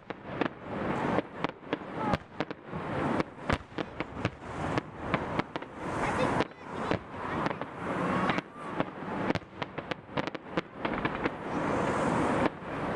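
Fireworks finale: a rapid, unbroken barrage of bangs, several a second, over dense crackling.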